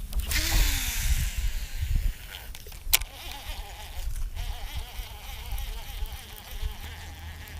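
A fishing cast and reel retrieve. A hiss at the start, a sharp click about three seconds in, then the reel's steady whirr as the lipless crankbait is cranked back in, with wind rumbling on the microphone.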